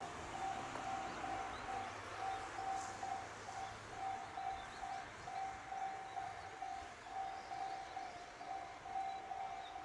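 Railway level-crossing warning bell ringing in a steady, even rhythm, about two rings a second, signalling an approaching train. Faint bird chirps are heard alongside.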